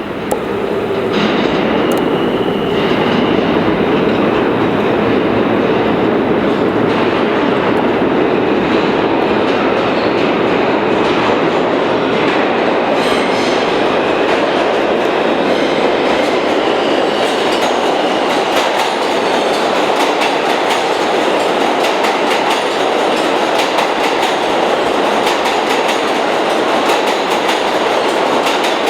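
New York City Subway train running on the tracks, with a loud steady rumble and the wheels clacking over rail joints. It swells in the first second, and more clacks come through in the second half.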